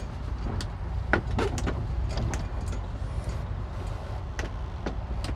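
Low, steady rumble of boat engines idling while manoeuvring at the dock, with a few light knocks and clicks scattered through it.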